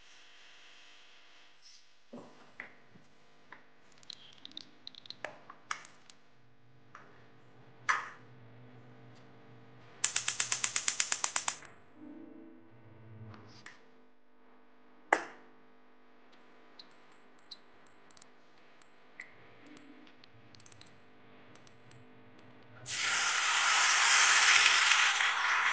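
Scattered kitchen clicks and knocks, then a gas hob igniter ticking rapidly for about a second and a half. Near the end, blended spice paste is poured into a hot pan and sizzles loudly and steadily.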